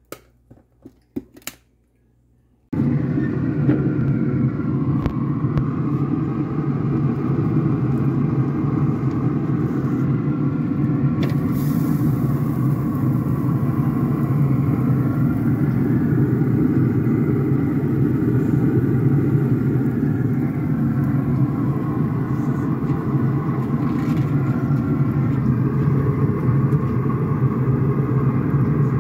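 A few soft clicks, then about three seconds in a loud, steady mechanical rumble cuts in and runs on evenly.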